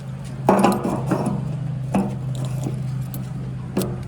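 Heavy vehicle's engine running steadily at idle, with sharp metallic knocks and clinks about half a second in, about two seconds in and near the end.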